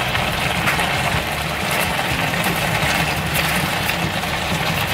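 Spicy marinated pork with onion wedges sizzling and bubbling in a frying pan as its sauce cooks down: a steady hiss with small crackles.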